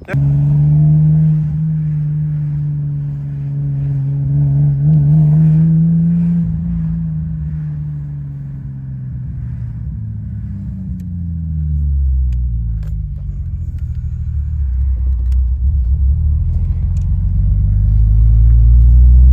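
Car engine running while driving, its pitch holding, easing down over several seconds, then climbing again toward the end, with a deep rumble underneath.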